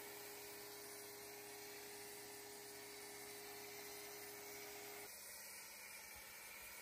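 Foam cannon spraying soap foam onto a car, a faint steady hiss. A steady hum under it stops suddenly about five seconds in.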